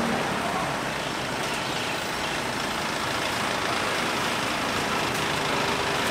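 A steady engine-like roar with a low hum underneath, without breaks or distinct impacts.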